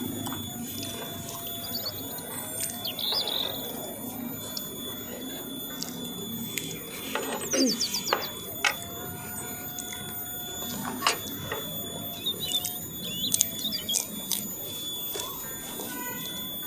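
Metal spoons clicking and scraping on a metal serving tray, with chewing. Several short chirps, likely birds, sound in the background.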